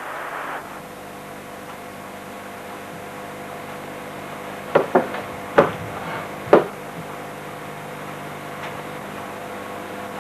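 Four sharp clicks or knocks within about two seconds, starting about five seconds in, from a hard black case being handled, over a steady low hum.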